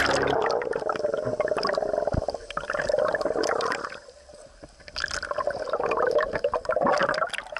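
Sea water sloshing and bubbling around a camera half in and half under the surface, with many small crackling clicks. It drops for about a second near the middle, then picks up again.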